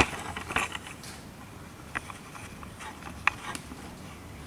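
A few light, irregular mechanical clicks and taps of a transmission jack and metal parts being worked, the sharpest about two seconds in and another a little after three seconds.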